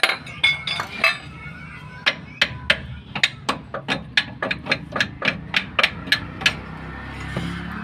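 Hammer blows, steel on steel, on a vehicle's front leaf spring and its clip while the spring is being opened. A few blows, a short pause, then a quick even run of about twenty, three or four a second, that stops about six and a half seconds in.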